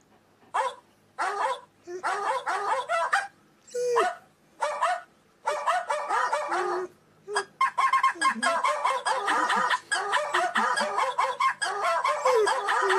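Squeaky animal cries played from a recording: short pitched calls in bursts with pauses at first, running almost without a break from about halfway through.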